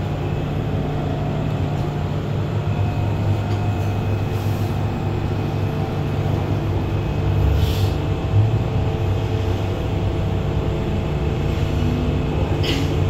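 MTR M-Train heard from inside the carriage: a steady low rumble of the train's running and equipment noise. About ten seconds in, a traction-motor whine begins and climbs steadily in pitch as the train pulls away.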